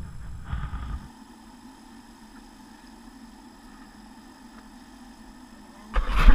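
Camp stove with a pan of frying oil giving a steady low hum. Near the end there is a sudden loud rush of noise.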